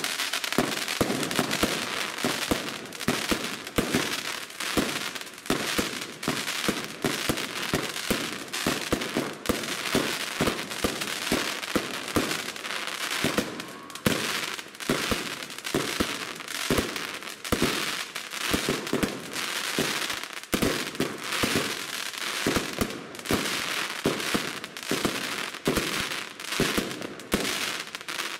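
Rubro Transbomber compound firework cake, 144 shots of 25 mm calibre, firing a rapid, unbroken string of launches and bursting stars, many shots a second.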